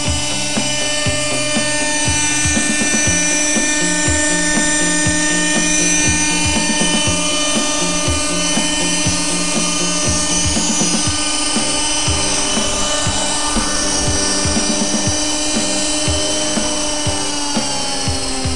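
Pegasus .18 nitro RC helicopter: its small glow-fuel engine runs with a high, drill-like whine and the rotor turns while the model hovers. Near the end the pitch drops as it settles onto the ground.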